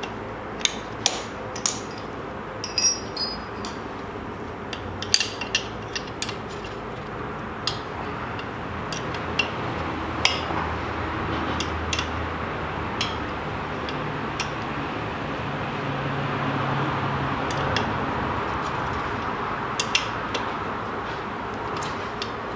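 Scattered metallic clicks and clinks of a ratchet and hand tools working the clutch cover bolts, some with a brief ring, irregularly spaced, over a steady low hum.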